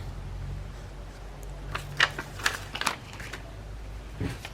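Paper being handled on a craft table: a few short rustles and taps about two seconds in and again near the end, over a steady low hum.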